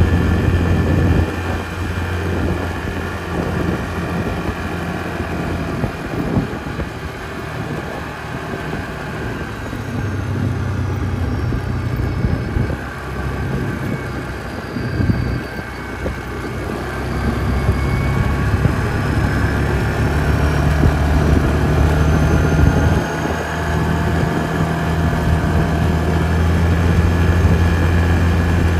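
Yamaha Grizzly 450 ATV's single-cylinder four-stroke engine running while riding, its note easing off and picking up again several times as the throttle and speed change.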